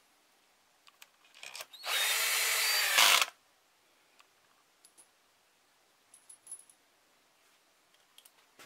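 Cordless drill-driver running a valve-cover bolt into the cylinder head: a short blip, then one steady motor whine lasting just over a second. Light clicks of the bit and bolts come before and after.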